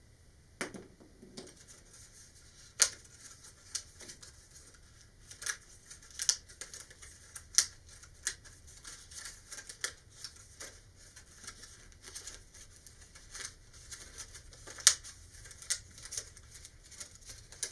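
Thin vacuformed plastic sheet bent back and forth along hobby-knife score lines, crackling and snapping in irregular sharp clicks as the part breaks free of the sheet, with a few much louder snaps among them.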